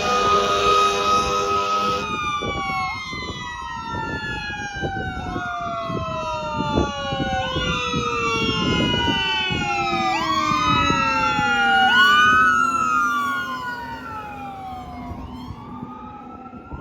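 Fire engine's air horn blowing a steady blast that cuts off about two seconds in, followed by its sirens: a siren wailing up and down about every two seconds over a second siren tone falling slowly, fading near the end.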